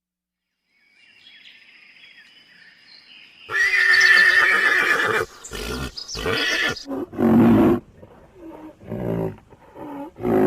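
Animal calls: faint high thin calls for the first few seconds, then a loud drawn-out call about three and a half seconds in, followed by a run of shorter calls.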